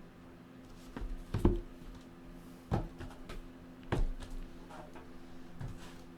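A few separate knocks and thuds from objects being handled and set down on a table, the loudest about one and a half seconds in, over a faint steady hum.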